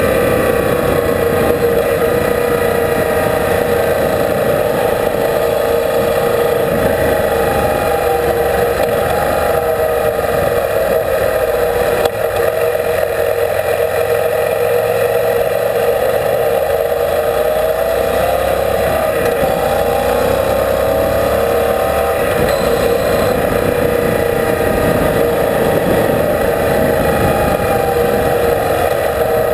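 Yamaha Super Ténéré motorcycle engine running at steady cruising speed on a gravel road, its note rising and falling slightly with the throttle, under wind and tyre rumble on the bike-mounted camera.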